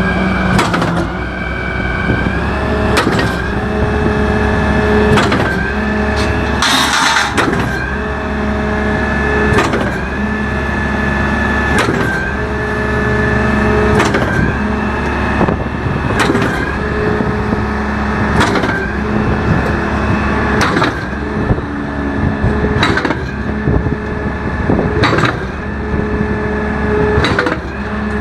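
Concrete pump running and cycling: a steady engine drone and hydraulic whine, with a knock about once a second as the pumping stroke changes over. One louder rushing burst about seven seconds in.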